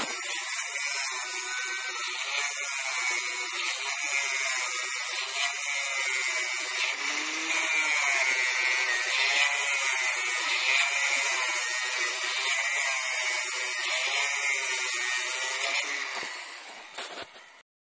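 Angle grinder cutting through expanded metal mesh, a loud steady grinding whine. About sixteen seconds in it comes off the cut and fades away over a second or so.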